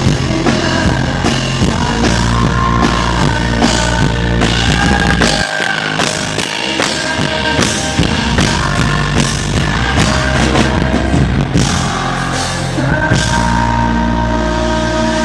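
Live rock band playing loud through a concert PA, with drum kit hits and guitars. The bass drops out for about a second and a half midway, then returns, and sustained held notes come in near the end. Recorded right in front of a subwoofer cabinet, so the bass sounds poor.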